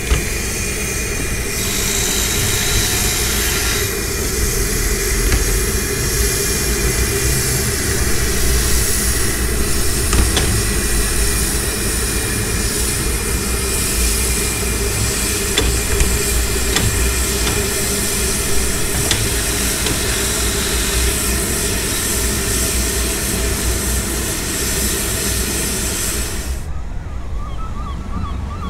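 Ffestiniog Railway steam locomotive Blanche, a Hunslet saddle tank, hissing steam steadily over a low rumble as it moves along the station track. The sound cuts off suddenly near the end.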